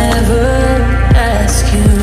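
Background music: sustained synth tones and a melody over a deep drum beat that lands roughly once a second.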